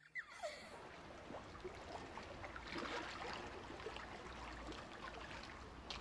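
Faint, steady water noise, a little louder from about halfway through.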